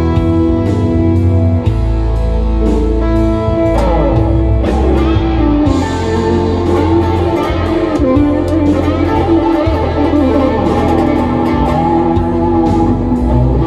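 Gibson Les Paul electric guitar through a Mesa/Boogie amp playing improvised lead over a backing track with a steady drum beat and bass. The guitar holds notes at first, then from about four seconds in plays lines with string bends and vibrato.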